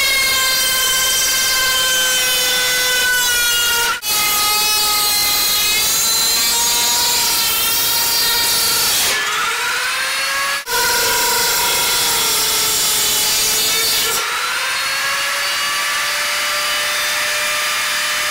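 High-speed power tool whining as it cuts through a stainless steel strainer, its pitch sagging and recovering under load over a steady hiss of metal cutting. The sound breaks off very briefly twice, about four and ten and a half seconds in.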